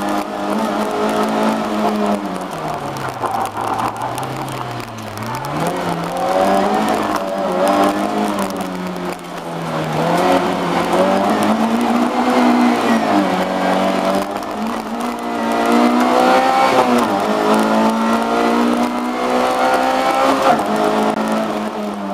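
A 1.3-litre Lada engine heard from inside the cabin, revving hard through acceleration, lifts and gear changes. Its pitch drops low for a few seconds near the start, then climbs and falls again and again.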